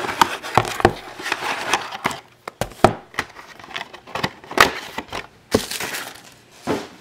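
Shrink-wrapped cardboard trading-card mini boxes being handled and set down on a table: plastic wrap crinkling at first, then a series of separate light knocks and taps.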